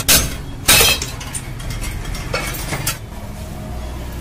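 Metal knocks and clanks from tool work on a moped's metal parts: two loud sharp strikes in the first second, then a couple of lighter clinks.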